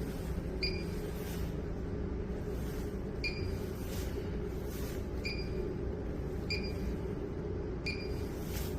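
A 25 kg commercial coin-laundry washing machine running on a test cycle: a steady low rumble, with five short high chirps at uneven intervals of one to three seconds.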